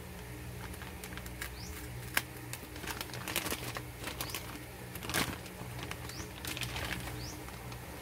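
Anti-static plastic bag crinkling and rustling in irregular bursts and clicks as it is pulled open and a motherboard slid out, loudest about two seconds in and again about five seconds in.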